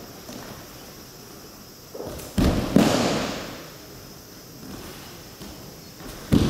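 Aikido breakfalls: thrown partners hitting the tatami mat with sharp slapping thuds, two close together about two and a half seconds in and another near the end. Each impact echoes in the large wooden hall.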